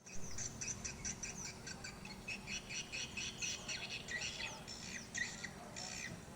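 Swiftlets calling: a dense, rapid stream of short high chirps and twitters, several a second, some with quick downward sweeps.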